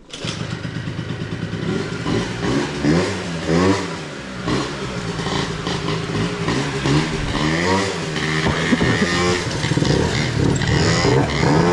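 Small moped-scooter engines running and being revved, the pitch rising and falling several times, with a sudden loud start right at the beginning.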